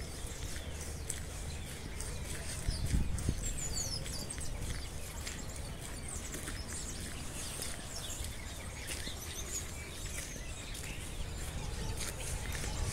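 Birds chirping, with a few clear chirps about four seconds in, over the scuffing of footsteps on a dirt road.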